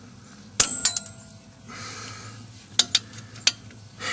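Steel wrench clinking and clanking against the brake line fitting on a drum brake wheel cylinder while trying to crack the line loose: a quick cluster of three sharp metallic clinks about half a second in, one with a short ring, then a few more sharp clinks around three seconds in.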